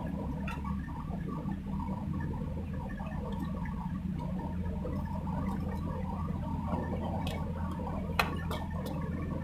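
Shallow rocky river rushing steadily over stones, with a few light clicks and one sharper tap about eight seconds in.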